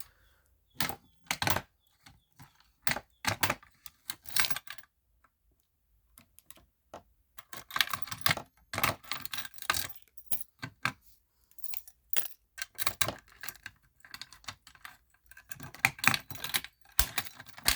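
Irregular clicking and rattling of small hard parts of a fire alarm setup being handled, with a pause of about two seconds near the middle.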